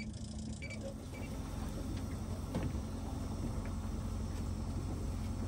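Fishing boat's motor running steadily at trolling speed: a continuous low rumble with a faint steady hum.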